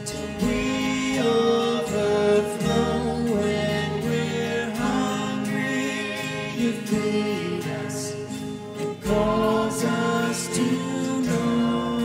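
Live worship band playing a slow song with flute, keyboard, acoustic guitars and drums, and a voice singing.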